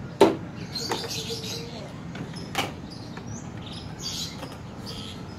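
Plastic toy hammer knocking plastic pegs into the lid of a Blast Box game box: three sharp knocks in the first three seconds, the first the loudest, with birds chirping in the background.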